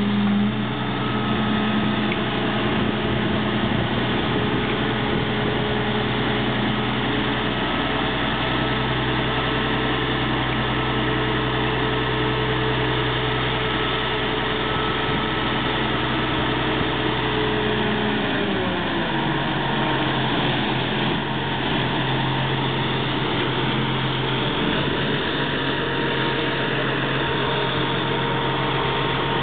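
Diesel power-pack engine of a self-propelled modular transporter running steadily under load as it moves a heavy transformer at walking pace. About two-thirds of the way through, the engine note falls and settles at a lower pitch.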